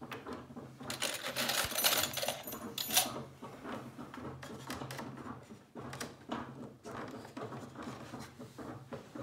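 Thin steamed wooden rib strips being handled and worked into a boat's wooden frame: a stretch of scraping and rubbing from about one to three seconds in that ends in a sharp click, then light clicks and rustles of wood against wood, over a faint steady low hum.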